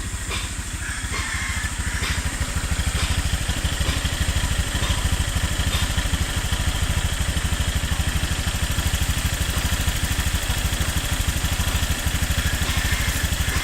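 Honda Click 150i scooter's single-cylinder four-stroke engine idling steadily, with the ticking sound the owner is asking about in the nearly new engine.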